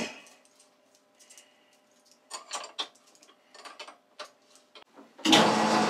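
Light metallic clicks and taps as hands handle an ER32 collet holder and its nut. About five seconds in, a sudden, much louder steady rushing noise comes in.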